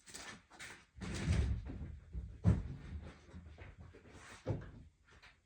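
Knocks, thuds and clatter of things being moved and handled, with a sharp knock about two and a half seconds in and another near the end.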